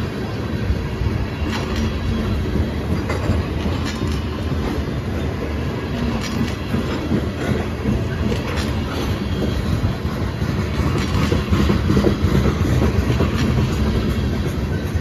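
Tank cars of a freight train rolling past: a steady rumble of steel wheels on rail, broken by irregular clicks and clacks as the wheels cross rail joints.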